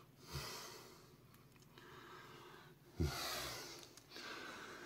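A person breathing close to the microphone, two exhales about three seconds apart, each starting with a soft low bump from the hand-held camera being moved.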